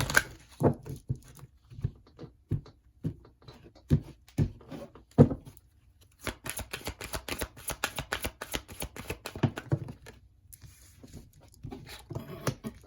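A deck of oracle cards handled and shuffled by hand: scattered taps and knocks of the cards for the first few seconds, then a run of rapid flicking clicks for about four seconds.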